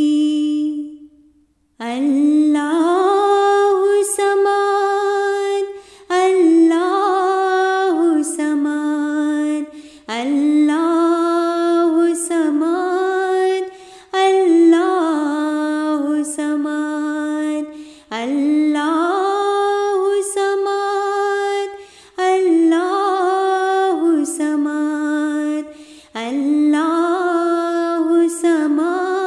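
A single voice chanting a tasbih unaccompanied, singing the same short devotional phrase over and over, a new repetition starting about every four seconds with a rising opening and a held note.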